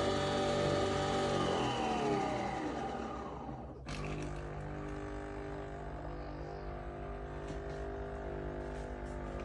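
Nespresso Vertuo Next capsule coffee machine running, its motor spinning the capsule with a steady whine that drops in pitch a few seconds in. A click comes at about four seconds, then a lower, steady hum follows.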